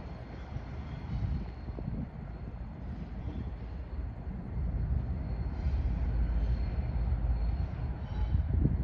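A train running by with a steady low rumble that grows a little louder about halfway through.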